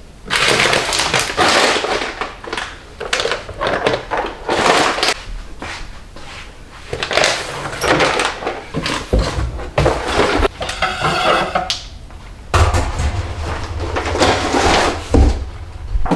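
Household items being handled and put away: a run of rustles, knocks and scrapes, with a low hum joining in for the last few seconds.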